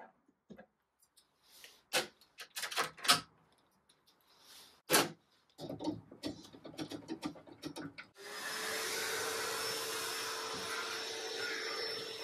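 Knocks and clatter of metal hanging fittings being worked loose inside a wooden wardrobe. About eight seconds in, a canister wet-and-dry shop vacuum switches on and runs steadily with a hum.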